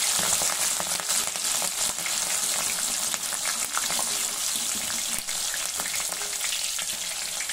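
Green chillies and curry leaves deep-frying in hot oil: a steady sizzle with small crackling pops, as a wire spider strainer moves them about in the oil.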